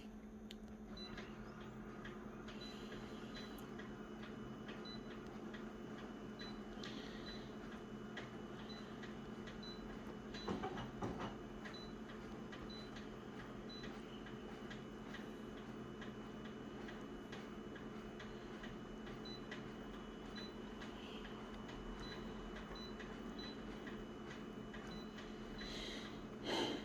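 Faint steady hum with soft, evenly paced ticks over it, and a brief handling rustle about ten seconds in and again near the end.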